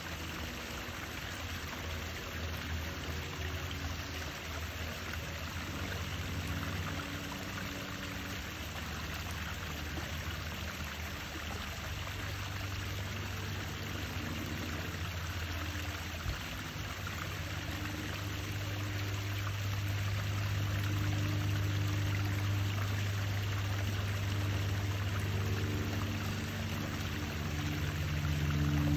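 Water running steadily in a rock-edged garden pond, an even trickling and splashing, with a low hum underneath that grows louder from about halfway through.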